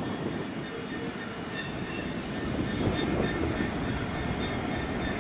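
GBRf Class 66 diesel-electric locomotive with its two-stroke V12 diesel running as it hauls coaches slowly by, with a steady rumble of engine and wheels on the rails getting slightly louder. A faint high squeal from the wheels joins about a second and a half in.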